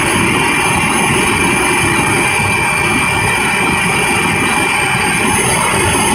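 Helicopter in flight heard from inside the cabin: a loud, steady engine and rotor noise with a thin high whine held throughout.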